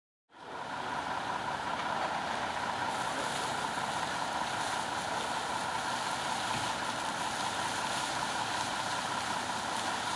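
Steady rush of a water jet from the roof monitor of a Tatra 815 TLF32 fire engine, with the truck's engine running to drive the fire pump. It fades in a moment after the start and then holds level.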